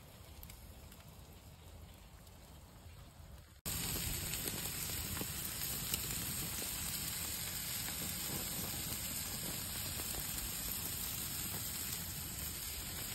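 Olive-oil-marinated perch fillets sizzling on grill grates. The sizzle is faint at first, then louder and steady after a cut about four seconds in, with faint crackling.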